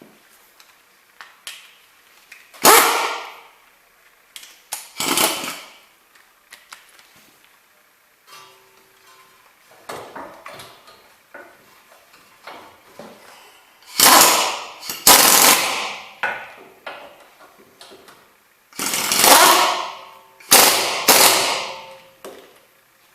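A power tool run in several short bursts of about a second each, with quieter metallic clicks and clatter between them.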